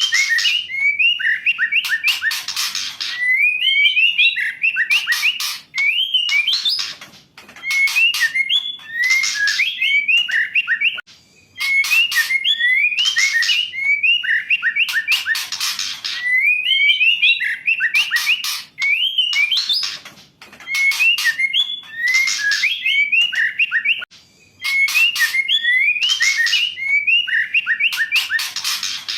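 Female white-rumped shama (murai batu) calling: short rising and falling whistled notes mixed with harsh rasping chatter, in phrases repeated every few seconds with short pauses between. A female's call like this is played to provoke male shamas into singing.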